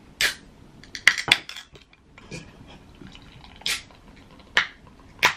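A can of Suntory All-Free non-alcoholic beer is cracked open by its ring-pull and poured into a glass. There are several short, sharp pops and splashes.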